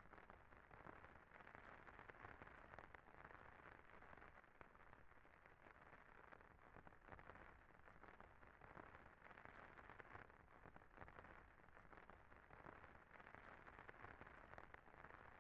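Near silence: a faint, even hiss with light crackle.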